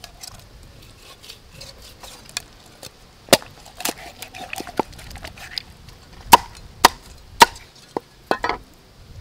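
Cleaver chopping through a whole fish into a round wooden chopping block: a quiet first few seconds, then a series of about eight sharp chops, the three loudest close together in the second half.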